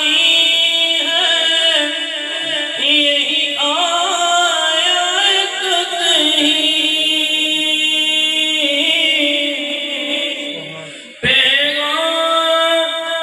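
A man reciting a naat, an Urdu devotional poem, in long, melodic, held lines sung into a microphone. He pauses briefly and starts a new phrase abruptly about eleven seconds in.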